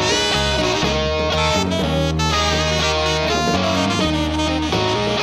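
A stoner rock band playing live: saxophone lines over electric guitar and drums, with long held notes.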